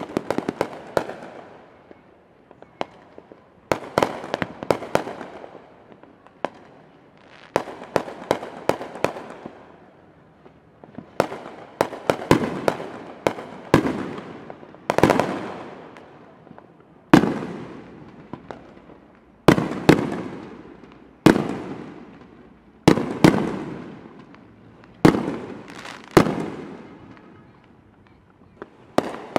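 Aerial fireworks bursting one after another: sharp bangs, some single and some in quick clusters of three or four, each trailing off in an echo that dies away over a second or two. There is a short lull near the end before the bangs start again.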